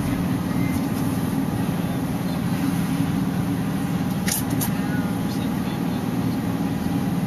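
Van's engine and tyre noise heard from inside the cabin, running steadily as it drives. A couple of brief clicks come about four and a half seconds in.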